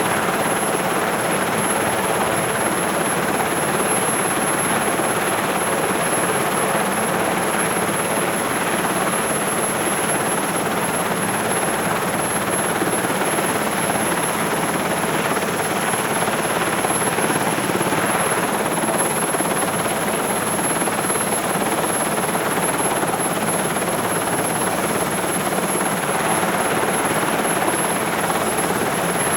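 Sikorsky SH-3 Sea King helicopter's twin turboshaft engines idling, heard from inside the cabin: a steady, dense mechanical noise with a constant high-pitched whine over it.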